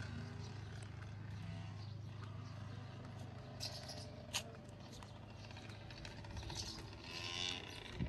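Quiet open-air ambience with a steady low rumble, faint distant voices and a single sharp click about four seconds in.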